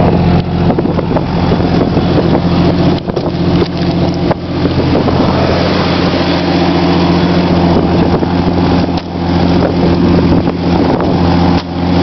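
Jeep Cherokee engine idling steadily while warming up in the cold.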